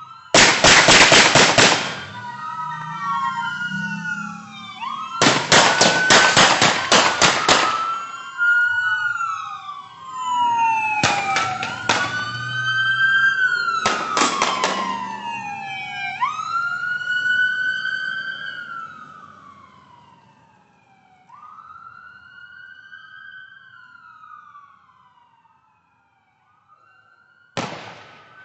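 Several police sirens wailing up and down, overlapping, cut by rapid volleys of gunfire from a police shootout with a suspect. Two long bursts of shots come in the first several seconds, two shorter ones follow, and a last short burst comes near the end as the sirens fade.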